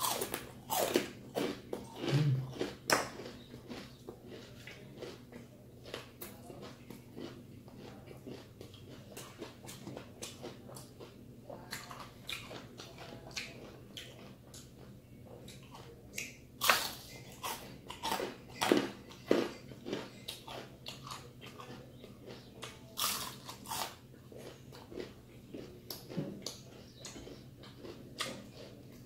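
Close-up crunching and chewing of crispy deep-fried chicken skin: sharp crackly bites come in clusters, with quieter wet chewing between.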